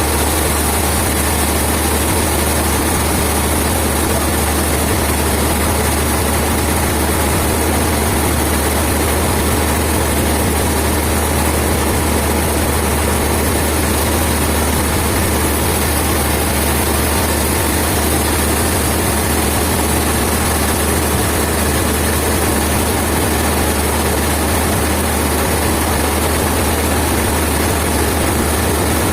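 Heavy sawmill machinery engine running steadily at a constant low hum, with no change in load.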